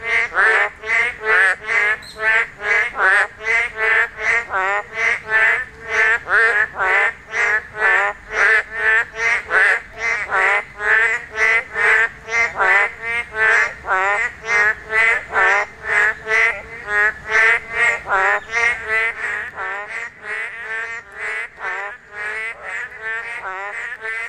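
Breeding chorus of boreal digging frogs (Kaloula borealis): many males calling at once in rapid, overlapping calls, about two to three a second, growing somewhat quieter over the last few seconds. These calls are heard only in the spawning season.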